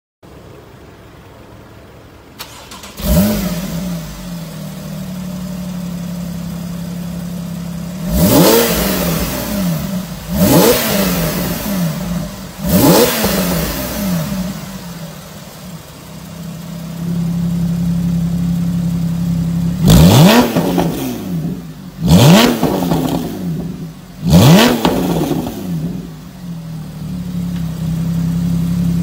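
Porsche 991 Carrera S flat-six through an ARMYTRIX valve-controlled aftermarket exhaust. It catches about three seconds in with a flare, settles into a steady idle, then is revved hard six times in two sets of three quick blips, each rising sharply and dropping straight back to idle.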